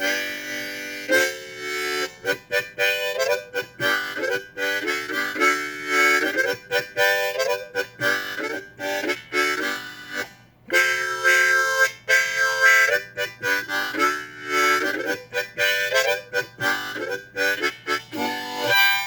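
Background music led by a harmonica, playing a melody in short phrases, with a brief break about halfway through.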